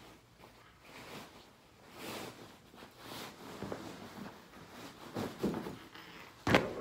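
Rustling and swishing of pillows and bedding as pillows are lifted, swung and set down, with a sharp thump near the end.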